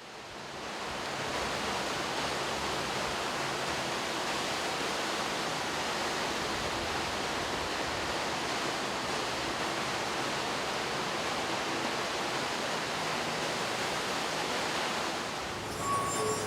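Steady rushing noise, like running water or dense distant traffic, swelling up out of silence over the first second and then holding even. Near the end, ringing bell-like tones come in.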